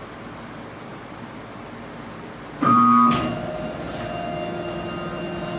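CNC router's motors starting to drive the pen carriage: about two and a half seconds in, a sudden loud short buzz, then a steady whine of several even tones as the machine moves.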